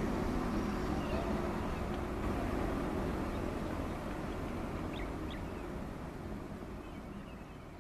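Hitachi crawler excavator's diesel engine running steadily at a distance, with a couple of short bird chirps about five seconds in; the whole sound fades out.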